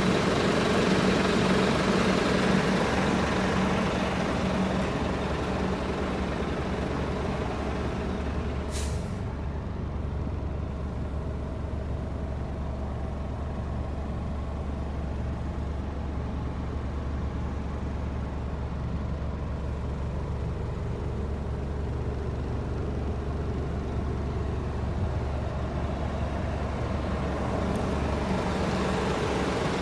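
UD Quon truck's GH11 diesel engine idling steadily, with a short sharp hiss of released air about nine seconds in.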